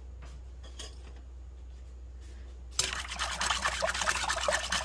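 Faint steady hum, then about three seconds in a wire whisk starts beating quickly in a glass bowl of warm water, yeast and sugar, a fast clatter of wires against glass with sloshing liquid. The whisking is dissolving the yeast and breaking up its lumps.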